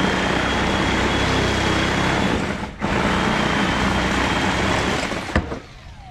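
An electric power tool running with a steady high whine, cutting out briefly about three seconds in, then starting again and stopping a little after five seconds with a sharp knock.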